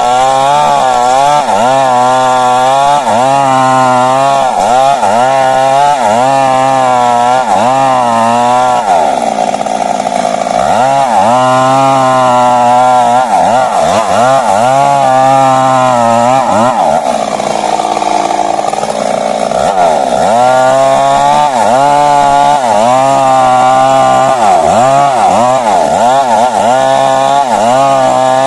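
Stihl MS 382 two-stroke chainsaw cutting through a large tree trunk at high revs. Its engine pitch wavers up and down quickly as the load on the chain changes, and drops off twice, about a third and two thirds of the way through.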